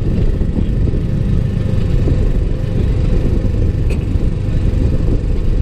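Steady low rumble of a moving motor vehicle: engine noise mixed with wind buffeting the camera's microphone while driving along a road.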